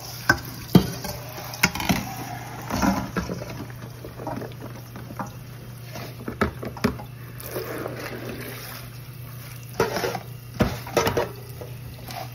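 Metal colander and utensils knocking and clattering against a stainless steel sink, with tap water running as vegetables are rinsed. A steady low hum sits underneath.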